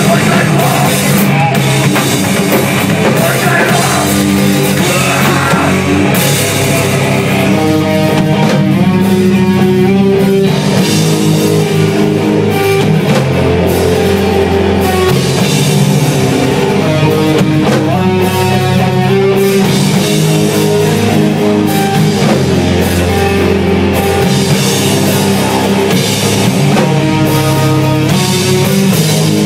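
Hardcore punk band playing live and loud: distorted electric guitar, bass guitar and a drum kit pounding away without a break.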